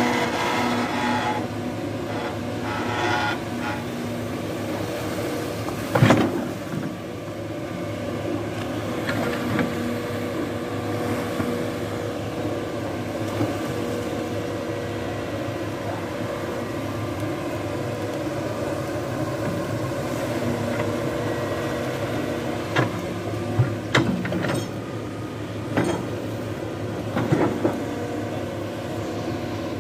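Hitachi ZX210 long-arm excavator's diesel engine running steadily with a humming tone while the machine works a coconut trunk with its bucket. Several sharp knocks cut through the hum: one about six seconds in and a cluster near the end.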